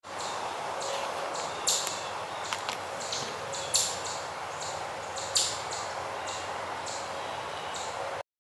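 Outdoor ambience: a steady hiss with short high chirps, likely birds or insects, repeating about twice a second, a few of them louder. It cuts off suddenly just before the end.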